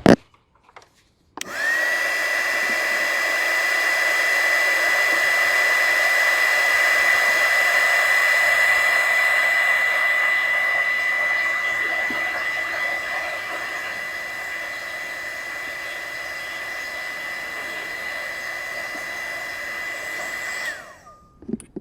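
Electric heat gun running steadily for about 19 seconds, shrinking heat-shrink tubing over spliced wires. Its fan's high whine rises quickly to pitch as it switches on and drops away as it switches off near the end.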